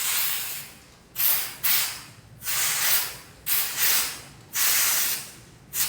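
Aerosol can of white contrast paint spraying in short hissing bursts, about seven of them, as the white background coat for magnetic particle testing goes onto the weld.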